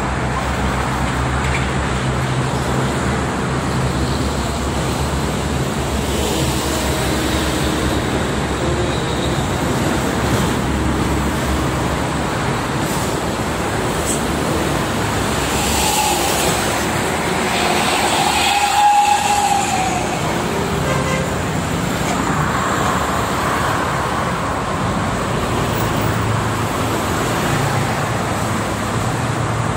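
Steady roar of dense highway traffic, with cars, trucks and buses passing at speed on a multi-lane toll road. About two-thirds of the way in, a vehicle horn sounds once for a second or two.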